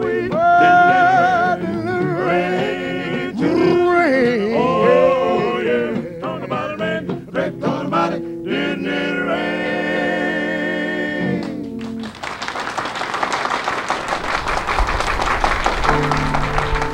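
Male gospel vocal group singing the close of a song in close harmony, ending on a long held chord. About twelve seconds in, the studio audience applauds.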